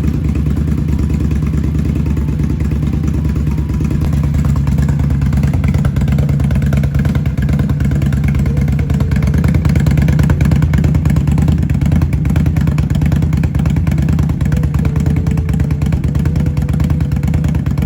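Indian Scout Bobber's V-twin engine idling steadily, just after a fresh oil change, with no revving.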